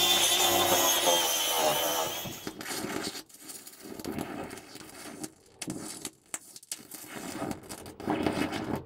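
Angle grinder with a flap disc grinding the aluminium joint, its motor whine wavering under load, stops about two seconds in. Then a stick-welding arc on aluminium crackles and sputters irregularly with brief breaks, louder near the end.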